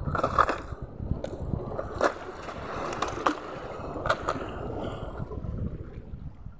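Phone-camera handling noise while climbing over granite boulders with a spinning rod and reel: a string of about eight sharp knocks and scrapes over a rough rumble of wind and sea water washing among the rocks, easing off near the end.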